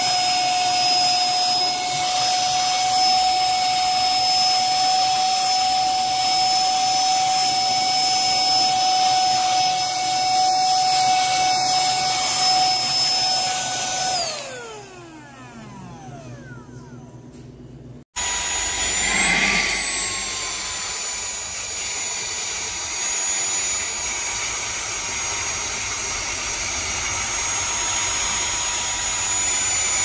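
Small cordless handheld vacuum motor running with a steady high whine, then switched off about 14 seconds in, its pitch falling as it spins down. A few seconds later it is running again with a higher-pitched whine that rises briefly as it comes up to speed and then holds steady.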